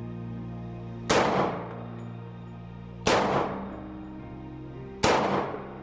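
Three pistol shots from a Glock 20 in 10mm Auto, fired slowly about two seconds apart, each with a short echoing ring-out in an indoor range. Background music plays under the shots.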